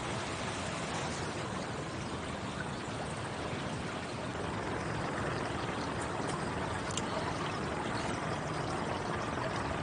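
Steady trickling and rushing of swimming-pool water, with a few faint ticks about six to eight seconds in.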